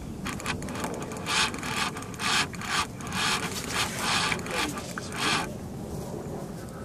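Fly reel's click-pawl ratchet going in short bursts, about two a second, as line is reeled in on a big carp, stopping about five and a half seconds in.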